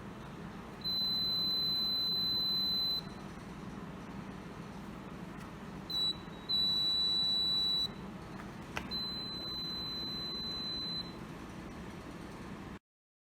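Electromagnetic buzzer of a home-built laser security alarm sounding a steady high-pitched beep in three bursts of one to two seconds each, with a short blip before the second. The beeping means the laser light on the light-dependent resistor has been cut off, so the transistor passes current to the buzzer.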